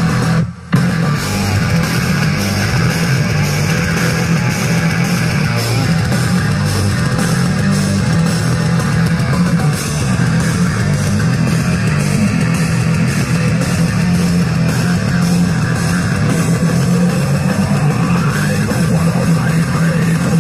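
Loud music with heavy bass and guitar played through a large outdoor sound system's speaker stacks, cutting out for a moment about half a second in.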